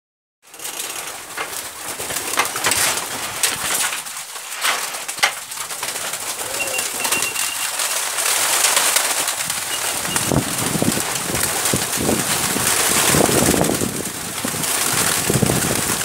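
A flock of pigeons cooing and flapping their wings. The cooing and wing noise build up from about halfway through as the birds crowd in to be fed.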